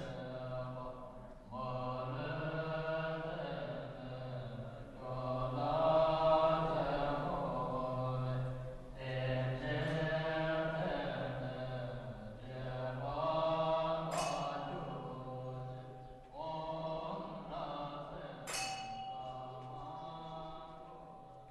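Low-voiced Buddhist mantra chanting, sung in phrases of a few seconds each on a steady low pitch with short breaks for breath. A small bell is struck twice in the second half and rings on.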